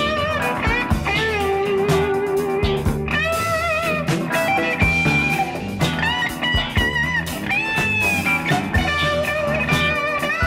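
Blues-rock music led by an electric guitar playing bent, wavering notes over a full band.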